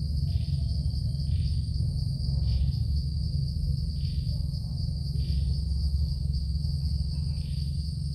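Evening insect chorus: a steady high-pitched drone with a shorter call repeating about once a second, over a steady low rumble.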